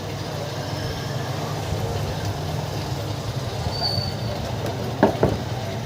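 Two quick knocks about five seconds in, from parts of a disassembled cooler motor being handled, over a steady low background rumble.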